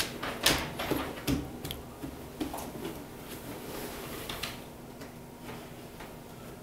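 Scattered small clicks, taps and rustles of pens, paper and books being handled at classroom desks, several in quick succession in the first two seconds and another cluster about four seconds in, then settling to quiet room tone.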